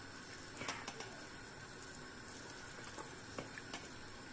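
Pot of green pine cones boiling in water for pine-cone syrup: faint steady bubbling with a few small pops.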